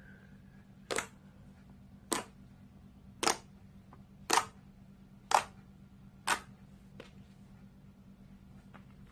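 Slime played with, giving six sharp, crisp pops about a second apart, then a faint click.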